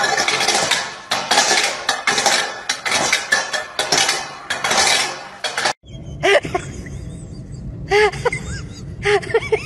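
A stainless steel dog bowl clattering and scraping over brick paving as a small dog shoves it along, for about six seconds. It stops suddenly, and then come several short rising-and-falling whines from a husky.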